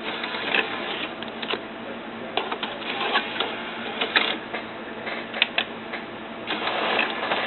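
CD transport of a Numark MixDeck working through a disc eject and load: a small motor whirring with repeated mechanism clicks, and a longer whir near the end. No grinding is heard; the mechanism sounds the same as on the other deck.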